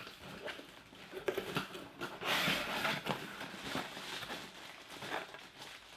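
Cardboard and packing material rustling and scraping as a mystery box is handled and opened by hand. The handling is irregular and is loudest about two to three seconds in.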